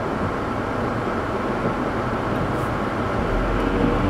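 Steady road and rain noise heard inside a car driving slowly on a wet road. A low hum comes up about three seconds in.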